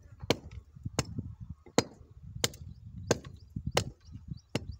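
Steady strikes of a hand tool on a wooden formwork board, seven sharp blows about two-thirds of a second apart.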